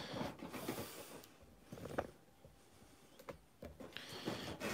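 Cardboard and clear-plastic toy box being handled and opened by hand: rustling and scraping of the packaging, with a few sharp clicks and a quieter stretch in the middle.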